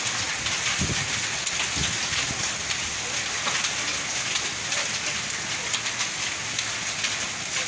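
Heavy rain mixed with hail falling on a paved road and puddles: a steady hiss dense with small, sharp hits.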